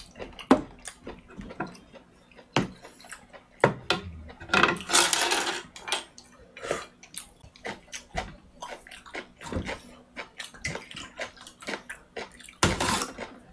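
A person eating pork noodle soup close to the microphone: wet mouth sounds and clicks of chopsticks and a wooden spoon against a plastic tray and bowl, with a long slurp of noodles and broth about five seconds in and a shorter one near the end.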